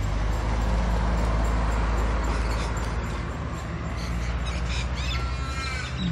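Steady low engine hum and road traffic noise from nearby motor vehicles, with a few short bird calls chirping near the end.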